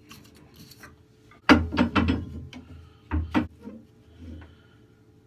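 Knocks and clatter of wood and metal parts being handled at a wood lathe, in two bursts: a loud cluster about a second and a half in and a shorter one about three seconds in.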